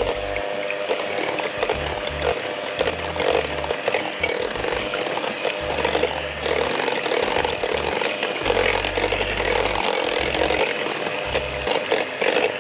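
Electric hand mixer running steadily, its twin beaters whisking cream and condensed milk into an ice-cream base in a glass bowl.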